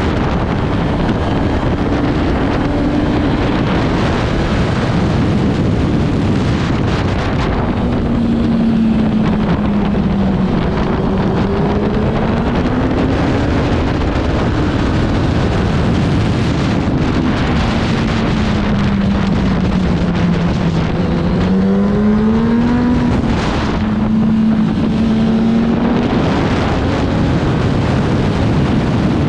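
Racing motorcycle engine at speed, its pitch falling and climbing again with the throttle through corners, with a sharp rise about three-quarters of the way through, under heavy wind rush on the microphone.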